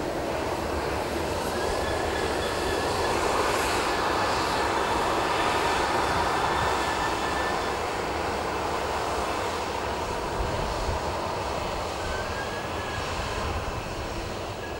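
Boeing 737-800's CFM56-7B turbofan engines at taxi power: a steady jet rush with a thin high whine, swelling as the aircraft passes close a few seconds in and easing off as it moves away.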